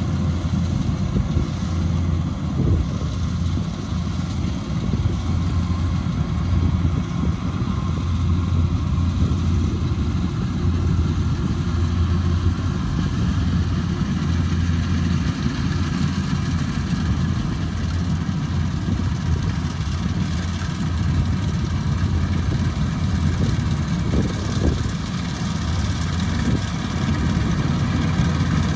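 Kubota DC-105X combine harvester running steadily, its diesel engine holding an even low hum.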